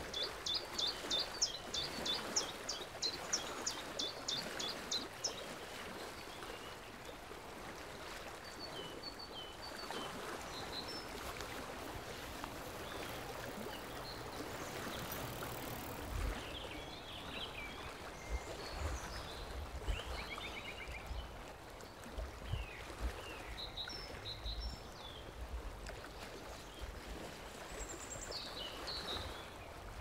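Riverside nature ambience: songbirds over a steady soft rush like flowing water. A rapid high trill sounds for the first five seconds, then scattered chirps, with some low rumbles in the second half.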